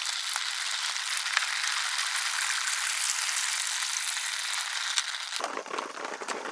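Water pouring out of an upturned plastic gallon jug and splashing over a hand onto a plastic tabletop, a steady hiss that stops about five and a half seconds in.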